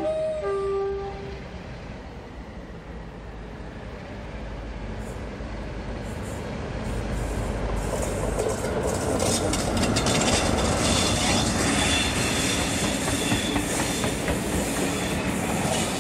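British Rail Class 47 diesel locomotive 47802 hauling a train of coaches through a station. Its two-tone horn sounds briefly and stops about a second in. Then the train's rumble grows as it approaches and passes, with wheels clicking over rail joints and a faint wheel squeal, loudest in the second half.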